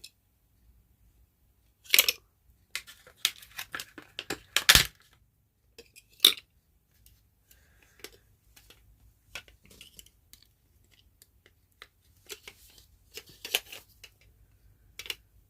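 Batteries being loaded into a vintage metal flashlight: irregular clicks, knocks and scraping as the case and batteries are handled, with sharper knocks about two, five and six seconds in and a busier run of clicks near the end.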